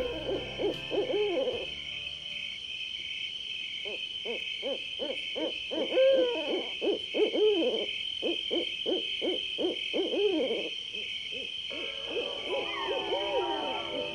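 Night-time animal calls: a long, fast run of short calls that each rise and fall, over a steady high-pitched insect-like drone. After a brief pause the calls come back, more varied, near the end.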